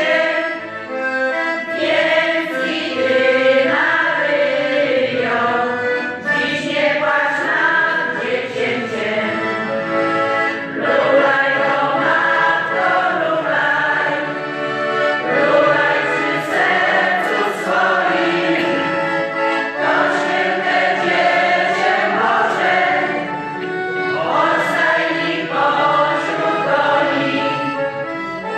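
A group of voices singing a Christmas carol together, accompanied by an accordion.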